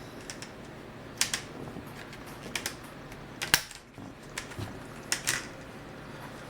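Plastic snap clips of a laptop's screen bezel clicking loose as a flat-tip screwdriver pries around its edge: a string of sharp, irregular clicks, the loudest about three and a half seconds in.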